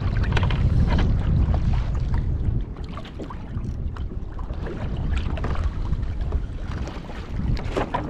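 Wind buffeting the microphone: a low, blustery rumble with scattered light clicks and knocks. It eases somewhat about two and a half seconds in.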